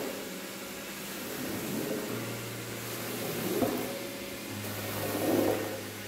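Wide metal floor squeegee pushed in repeated strokes across a soaked, soapy rug, swishing water and foam out of the pile. Each stroke swells and fades, with the loudest about halfway through and near the end, over a low steady hum.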